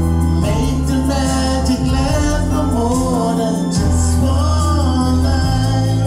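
Man singing karaoke into a handheld microphone over a recorded backing track of steady bass and chords, his amplified voice wavering in pitch above the music.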